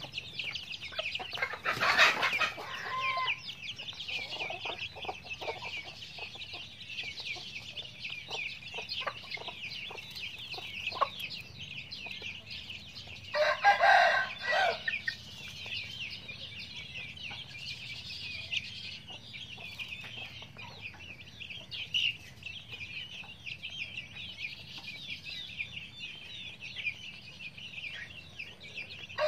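A flock of young chicks peeping constantly, with hens clucking in short calls. A rooster crows twice, about two seconds in and again about halfway through.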